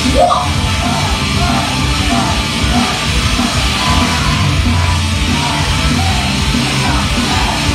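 Loud heavy rock music through a club PA, with a singer yelling and singing live into a microphone over it; a short rising shout opens the passage.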